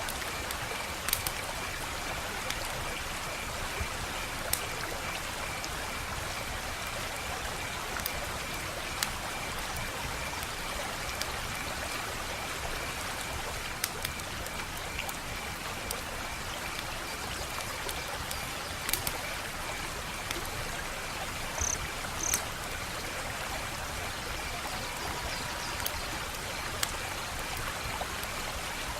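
Wood fire crackling: a steady hiss of burning logs with scattered sharp pops and snaps, roughly a dozen spread irregularly, two of them close together a little past the middle.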